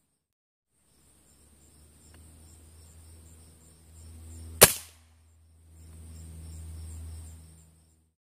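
A spring-piston air rifle fires once: a single sharp crack a little past halfway through, heard through the smartphone mounted on the rifle's scope. Low handling rumble on the phone's microphone comes before and after the shot.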